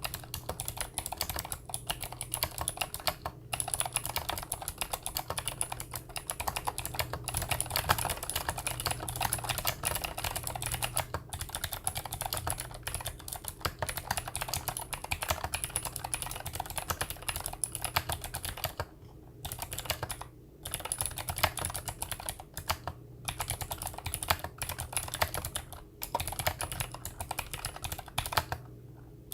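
Fast continuous typing on a mechanical keyboard with Gateron Blue clicky switches, each keystroke a sharp click, with a few short pauses between bursts.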